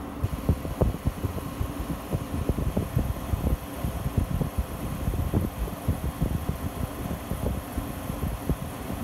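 1962 RCA Whirlpool window air conditioner running on cool, its fan and compressor giving a steady hum. Irregular low buffeting comes from the cold air blowing out of the grille onto the microphone.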